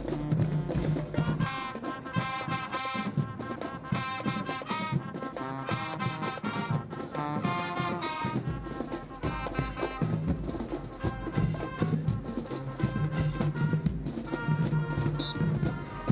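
High school marching band playing: the brass section holds loud chords over low bass notes, with drums striking throughout.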